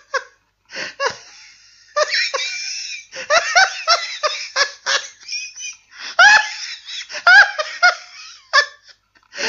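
Hearty laughter sound effect: loud laughing in quick, choppy bursts of bending pitch, broken by short gaps.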